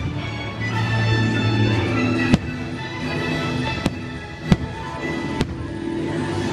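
Show music plays steadily while firework shells burst overhead, with about four sharp bangs spread through the second half.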